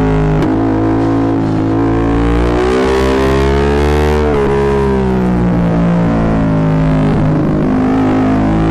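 Yamaha MT-07's parallel-twin engine through a full Akrapovic exhaust, heard while riding. The engine note climbs for about four seconds under throttle, drops sharply, eases off, then picks up again near the end. The sound is distorted because the microphone is overloaded by the exhaust.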